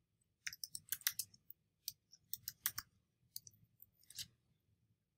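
Typing on a computer keyboard: a quick, uneven run of faint key clicks, about a dozen or more, entering a short search phrase. It stops a little past four seconds in.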